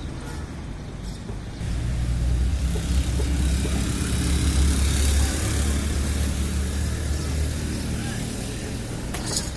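A motor vehicle passing close by: a low engine drone and tyre hiss rise suddenly a couple of seconds in, are loudest midway, then fade away.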